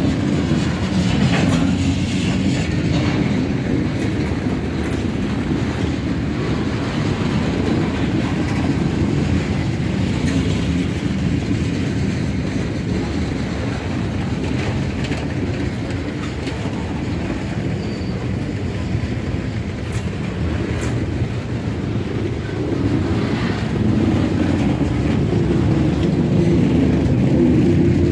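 Freight cars (tank cars, boxcars and a centerbeam flatcar loaded with lumber) rolling past at close range: a steady rumble of steel wheels on rail, with occasional sharp clicks.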